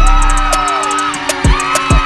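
Background music with a beat: deep, falling bass drum hits and fast hi-hat ticks under a melody.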